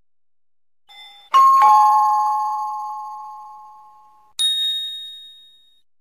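Two-note ding-dong chime, a higher note then a lower one, ringing out and fading over about three seconds. Near the end, a single brighter, higher-pitched ding sounds and fades away.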